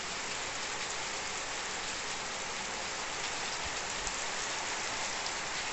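Steady rain falling on wet ground and tiled roofs, an even, unbroken hiss.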